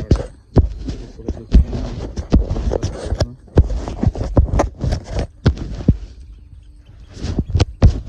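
Irregular heavy thumps and knocks, two or three a second, with splashy noise between them: footsteps and hooves on a wet concrete dairy yard among a herd of Holstein-Friesian cows. It goes quieter for a moment near the end.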